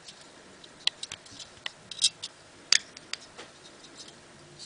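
A scattering of short, sharp clicks and ticks at irregular spacing, from hand work with the thin metal bus wire on the solar panel.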